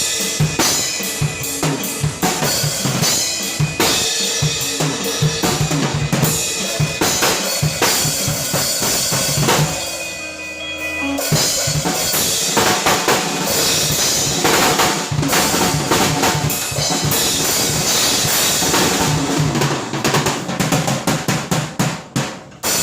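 Drum kit played along to a recorded pop song, with a busy kick-and-snare groove. The drumming thins out briefly around the middle, then picks back up, and a quick run of hits comes near the end.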